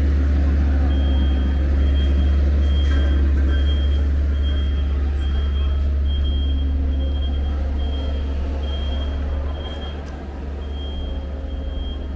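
A steady low rumble with a high-pitched electronic beep repeating roughly twice a second over it. The rumble eases slightly about ten seconds in.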